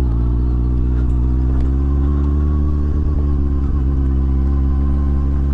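Honda CBF600 motorcycle's inline-four engine running steadily while riding, its pitch rising a little about two seconds in and then holding.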